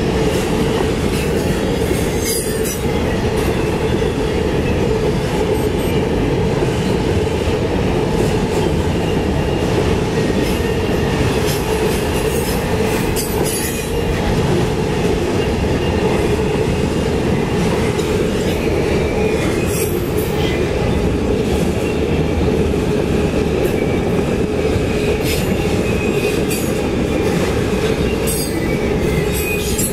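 Autorack freight cars rolling past on steel rails: a steady, loud rumble of wheels on track with a faint high wheel squeal and occasional sharp clicks.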